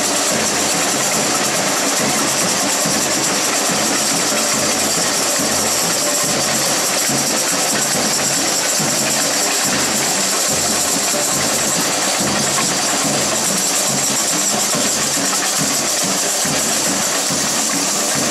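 Samba band music with drums and jingling percussion keeping a steady, driving beat, loud and unbroken.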